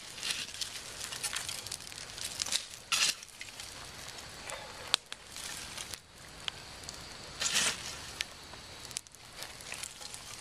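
Small metal shovel scraping and scooping burning coals out of a campfire and tipping them onto gravel, over the fire's crackle. There are irregular clicks and scrapes throughout, with louder, longer scrapes about three seconds in and again near eight seconds.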